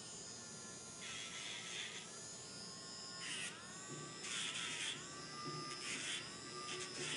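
Dremel rotary tool grinding a dog's toenails. A steady small-motor whine is broken by about five short gritty grinding bursts as the bit touches the nails, and the whine dips in pitch under each contact.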